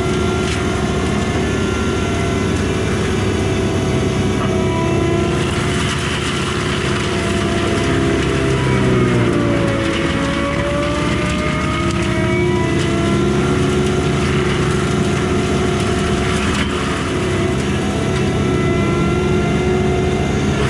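Kubota skid steer's diesel engine running hard, driving a Bradco MM60 drum mulcher through brush, with a steady whine above the engine note. The pitch sags about halfway through and climbs back up.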